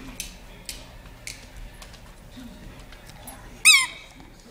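Two dogs playing on a hardwood floor: a few light clicks early on, then one short, loud, high-pitched squeal that drops in pitch, near the end.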